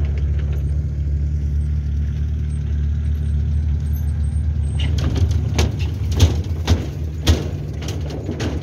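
A vehicle engine idling with a steady low hum, with a few short sharp bumps in the second half.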